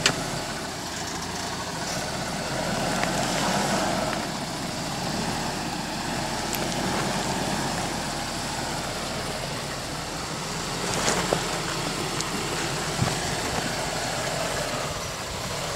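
Lifted Toyota pickup's engine running slowly under light throttle as the truck crawls over rocks, with a sharp knock at the start and another about eleven seconds in.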